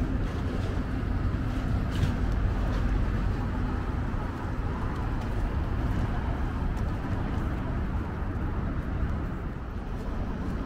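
Steady low rumble of road traffic passing in city street ambience.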